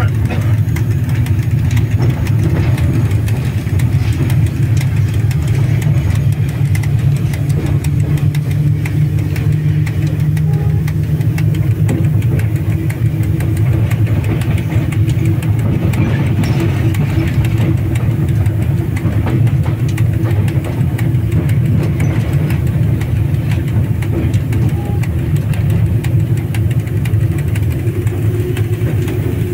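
Steady low drone inside the cab of a VL10 electric locomotive, its machinery running continuously with a fainter steady tone above the hum.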